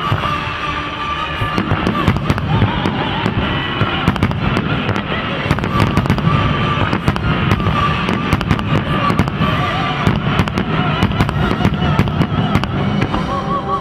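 Aerial firework shells bursting in quick succession, a dense run of sharp bangs, with music and its held notes playing throughout.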